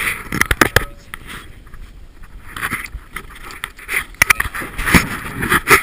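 Wind and choppy water around a small inflatable boat, with two clusters of sharp knocks, about half a second in and again from about four seconds in.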